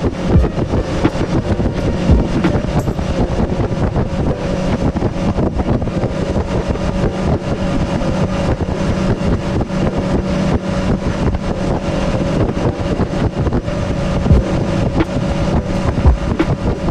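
Motorboat under way: the engine runs steadily, with wind buffeting the microphone and the hull knocking and slapping on the water.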